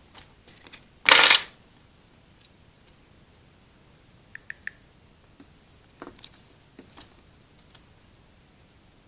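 Pen-and-paper handling while writing in a planner: a short loud rustle about a second in, then a few light clicks and taps, three in quick succession near the middle.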